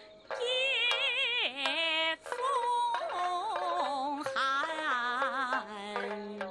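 A woman singing a slow, mournful Chinese song with heavy vibrato on long held notes, over instrumental accompaniment.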